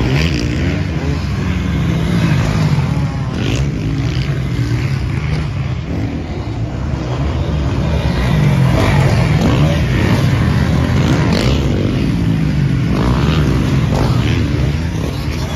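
Motocross dirt bikes' engines revving hard as the bikes pass one after another, the pitch rising and falling with the throttle and gear changes.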